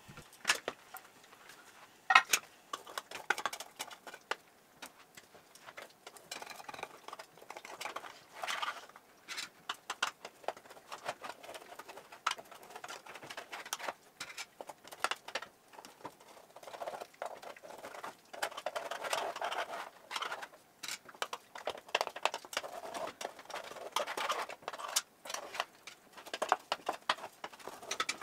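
A spatula scraping and tapping against a metal muffin top tin, prying out baked egg patties that stick to the pan, with irregular clicks and short scrapes.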